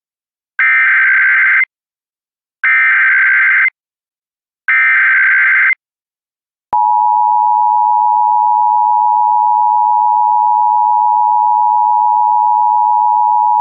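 Emergency Alert System opening: three one-second bursts of buzzy SAME header data tones, about a second apart. About halfway through, the steady two-tone EAS attention signal begins and holds.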